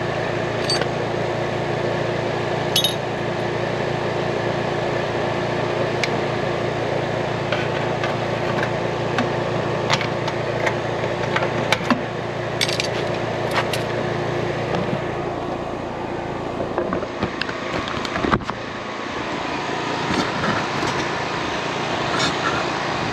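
Metal hand tools and small parts clinking and tapping at an air conditioner condenser's open electrical panel, over a steady machine hum. The low part of the hum drops away after a knock about three-quarters of the way through.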